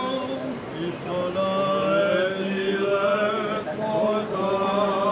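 Male voices singing Byzantine chant: a low drone note (ison) is held steady under a slowly moving, ornamented melody.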